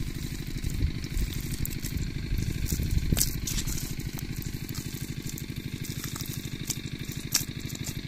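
A small engine running steadily with a fast, even low throb, while hands dig and squelch through wet mud, with a few sharper slaps, the loudest about three seconds in.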